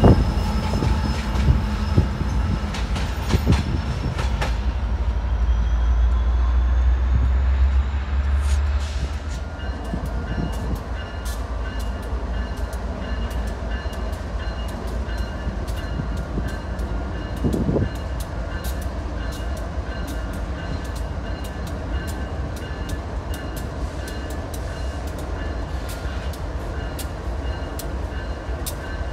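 A Metrolink F59PHI diesel locomotive pulling away, its engine rumbling, with a slowly rising whine, for the first eight seconds or so. Then empty TTX intermodal well cars roll slowly past, with steady wheel noise, a regular run of clicks from wheels over rail joints, and faint steady ringing tones.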